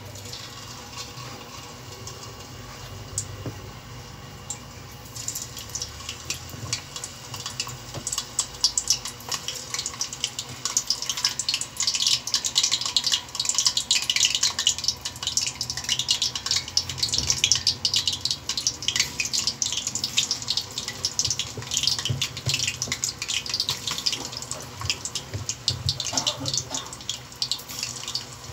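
Sweet potato slices deep-frying in hot oil in a wok: a dense crackling sizzle of many fine pops that starts about five seconds in and grows louder.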